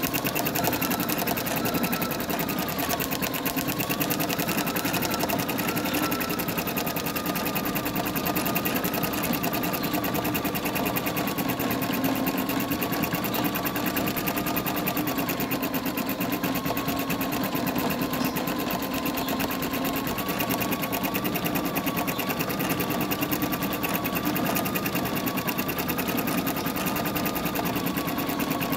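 Computerized embroidery machine stitching steadily through a towel: a rapid, even needle clatter over a motor hum, with a whine that wavers slightly in pitch.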